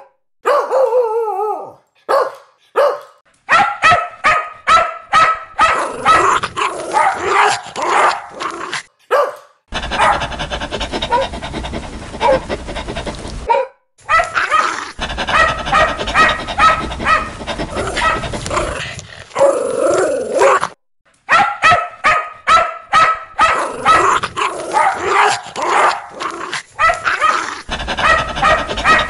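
Dogs barking in fast, repeated runs. Several separate recordings are cut together, with short silent breaks between them.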